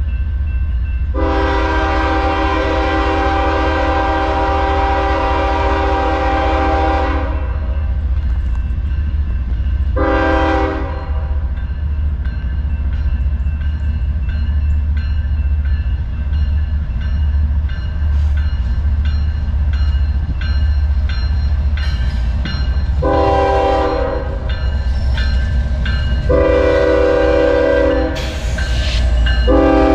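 Diesel locomotive's multi-chime air horn: a long blast of about six seconds, a short blast a few seconds later, then three more blasts near the end, over the steady low rumble of the passing train. Wheels click over rail joints through the second half.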